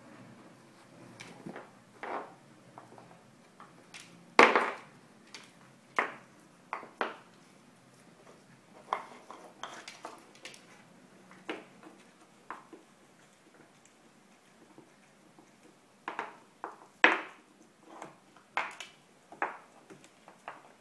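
Scattered hard knocks and clicks on a wooden floor, as a Pembroke Welsh corgi puppy noses and pushes her dried hoof chew about. The loudest knocks come about four and a half seconds in and again near seventeen seconds.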